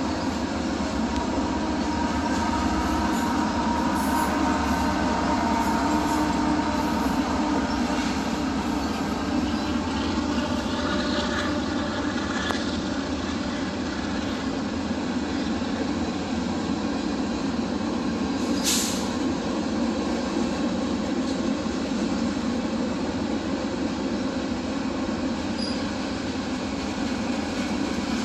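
CPKC freight train's cars rolling past on the rails, a steady rumble with a faint wheel squeal that dies away by about eight seconds in. One sharp knock comes about two-thirds of the way through.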